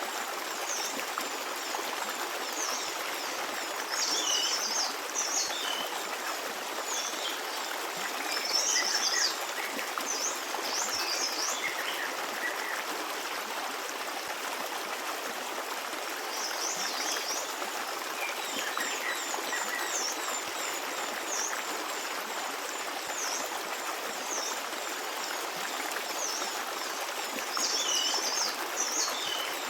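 Stream water running and babbling steadily, with small birds chirping in short high bursts several times, the busiest clusters a few seconds in, near the middle and near the end.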